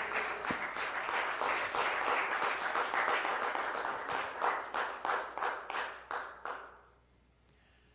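Congregation applauding, the clapping thinning to a few scattered claps and dying out about seven seconds in.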